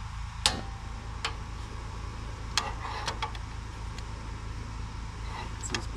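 Metal cookware knocked and clinked several times as frying begins. The loudest knock comes about half a second in and leaves a short ring, and it all sits over a steady low rumble.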